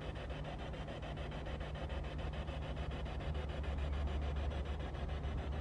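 Handheld spirit box radio scanner sweeping through stations: a rapid, even chopping of radio static, with a low rumble underneath that swells about three seconds in.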